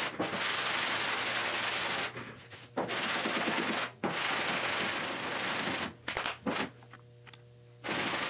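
A hand sanding block rasping back and forth over a car's steel body panel in long strokes of a second or two, with short breaks and a longer pause about seven seconds in. The panel is being block-sanded to show the high and low spots left after shrinking the metal.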